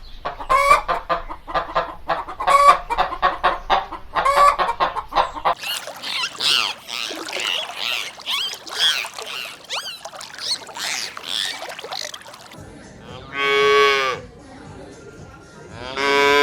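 Chickens clucking in quick repeated bursts, then a flock of poultry, likely geese, calling and honking over one another. Near the end come two long, low moos from a cow.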